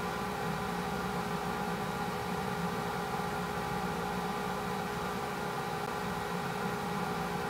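A steady mechanical hum with a few constant tones over an even hiss.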